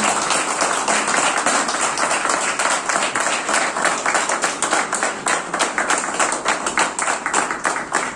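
An audience of a few dozen people applauding, with dense, irregular hand claps.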